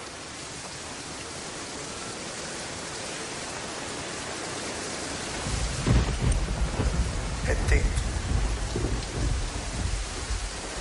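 Steady rain hiss, joined about halfway through by low, uneven rumbling of thunder.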